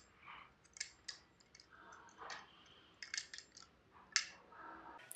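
Butterfly knife (balisong) being flipped: its handles and blade click and clack against each other in irregular sharp clicks, some single and some in quick clusters.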